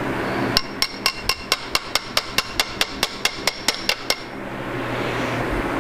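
Hammer tapping on a connecting rod in a Ford 351 Windsor V8 block to loosen the rod cap for removal. About four quick metallic, ringing taps a second, stopping about four seconds in.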